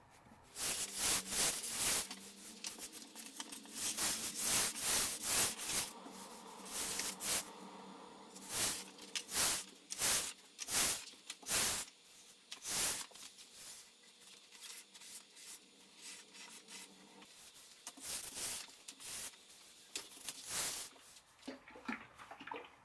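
Hand-sanding an acacia tabletop with a sanding pad: a series of rasping back-and-forth strokes, about one or two a second with short pauses.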